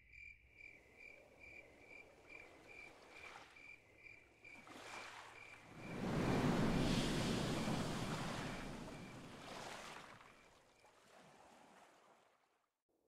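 Crickets chirping in a steady pulse, about three chirps a second, as sound effects for an animated logo. About six seconds in, a rush of sea water swells up as a whale breaches, then fades over several seconds.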